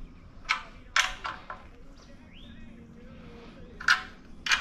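A handful of short, sharp knocks and clinks from hand tools and metal parts being handled while a radiator bracket is fitted on a crawler dozer, with a faint short squeak near the middle.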